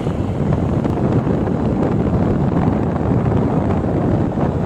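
Wind buffeting the microphone of a moving vehicle: a steady, loud, low rumble.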